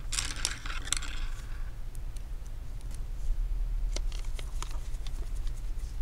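Light handling noises from gloved hands working inside an opened laptop: a cluster of rustling and small clicks at the start, then a few scattered clicks about four seconds in, over a steady low hum.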